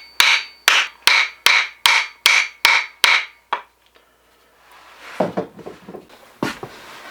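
Hammer blows on steel at a steady pace of a little over two a second, each with a short ring. The last blow is weaker and they stop about three and a half seconds in, followed by a few handling knocks and rubbing.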